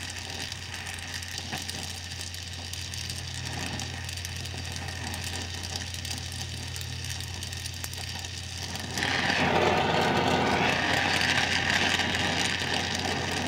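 An electric welder hums steadily, then about nine seconds in the arc strikes and crackles steadily against the muffler's cracked metal as the weld runs along the crack.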